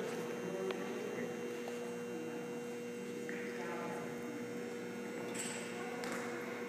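Steady electrical hum with a few faint, soft rustling noises.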